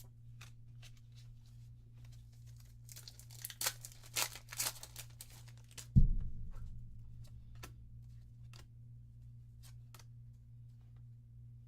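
Trading-card booster pack wrapper being torn open, with several quick rips and crinkling, then a single heavy thump about six seconds in. Light clicks come and go throughout.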